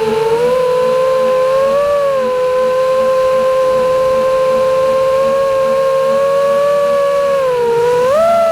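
FPV freestyle quadcopter's brushless motors and propellers whining at a steady pitch that follows the throttle, dipping slightly about two seconds in, then dropping and rising sharply near the end.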